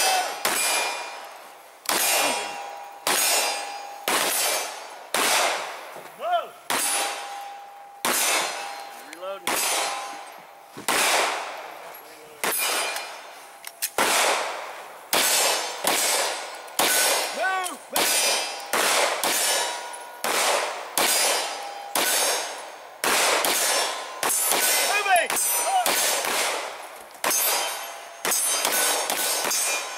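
Pistol shots fired one after another, about one to two a second, each followed by a ringing clang from rounds striking steel targets.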